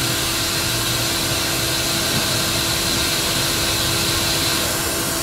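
Haas CNC vertical mill running, its end mill machining an aluminium block: a steady machine noise with a high whine that fades away near the end.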